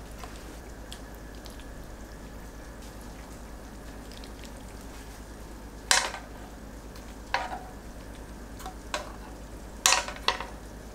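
Metal tongs and a serving spoon clicking and tapping against a ceramic pasta plate while tofu noodles, shrimp and cream sauce are served. About halfway through a sharp click, then a few more scattered clicks, the loudest near the end, over a steady low hiss.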